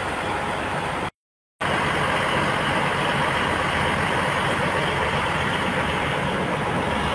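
Steady running noise of heavy fire-service truck engines, with a sudden half-second dropout about a second in.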